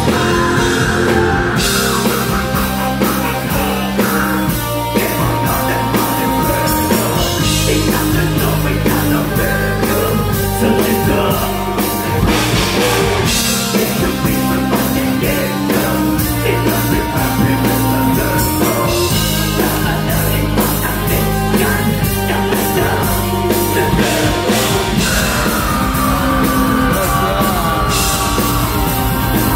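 Symphonic black metal band playing live through a venue PA: distorted guitars, bass and busy drumming under keyboard lines, with vocals.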